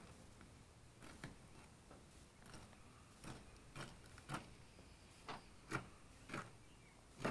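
Knife blade cutting along an alligator gar's hard scaly skin, making faint, irregular clicks, one or two a second.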